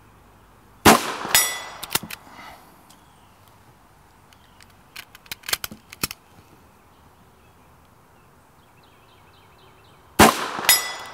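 Two .22 LR rifle shots from a bolt-action Mini Mosin, about a second in and near the end. Each is followed about half a second later by a short metallic ring from a steel target. Between the shots come a series of small clicks from the bolt being worked.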